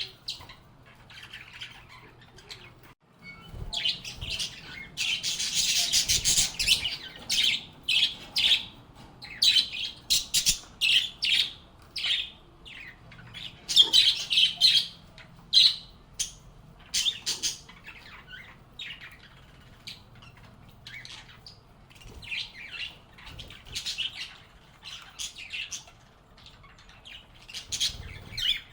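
Pet lovebirds (Agapornis) chirping and squawking in quick runs of short, shrill calls, thickest a few seconds in and again around the middle.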